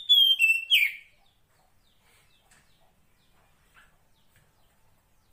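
Female Oriental magpie-robin (kacer poci) giving a short, loud phrase of clear whistled notes, each a step lower than the last, which ends about a second in. After that only faint, scattered chirps remain.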